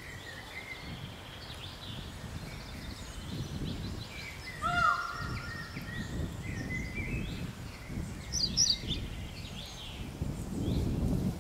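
Woodland birdsong: several birds singing and calling in short scattered phrases, with one louder call falling in pitch about halfway through. A low rumble rises underneath near the end.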